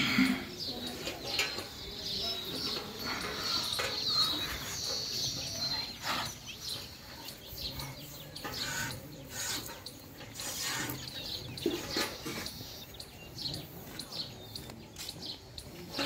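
Murrah buffalo being milked by hand: squirts of milk hitting a steel pail at an irregular pace. Birds chirp in the background, mostly in the first few seconds.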